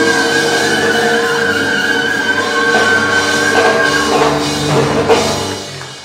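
Live Afro-Cuban jazz band playing, with a saxophone holding one long high note over drums and sustained chords. The held note ends about four seconds in, drum hits follow, and the band closes on a final hit about five seconds in as the music dies away.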